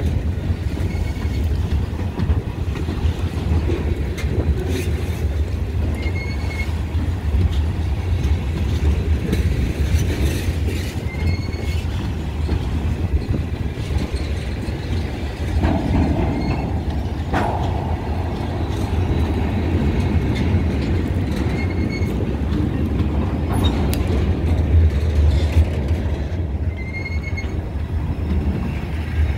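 Freight train cars, open-top hoppers and a tank car, rolling past: a steady low rumble of steel wheels on the rails with scattered clicks and clanks.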